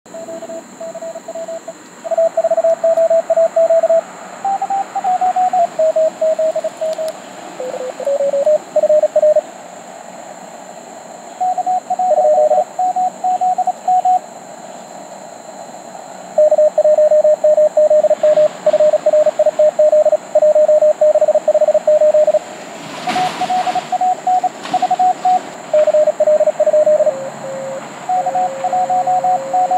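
Morse code (CW) signals from a Mountain Topper MTR4B QRP transceiver: several stations keying dits and dahs at slightly different pitches, over steady band hiss. A short burst of noise comes about two-thirds of the way through.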